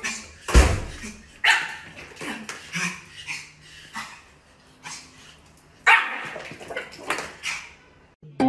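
Small dog barking in a string of short, sharp barks at irregular intervals, with a lull around the middle. A dull thump comes about half a second in.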